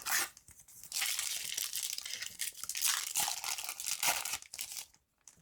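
A Yu-Gi-Oh booster pack's foil wrapper crinkling and tearing as it is torn open, with a short crackle at the start and then about four seconds of steady crinkling that stops near the end.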